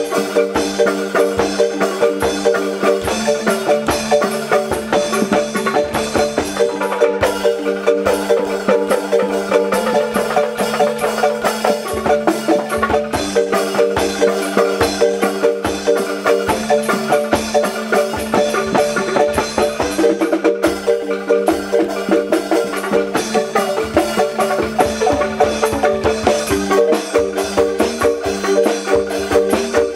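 Background music: a rhythmic tune with held notes over a quick, even percussion beat.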